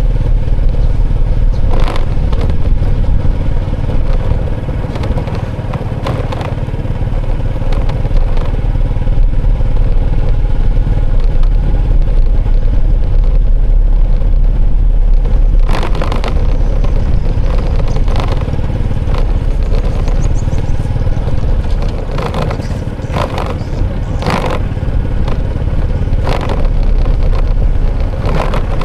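Steady low rumble of motor vehicle traffic, with scattered sharp clattering knocks.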